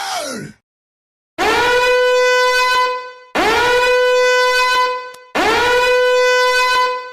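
Three identical held high 'ahh' tones, each scooping up in pitch at the start and then holding steady for about two seconds, with short gaps between them. The tail of a falling 'ahh' dies away in the first half-second.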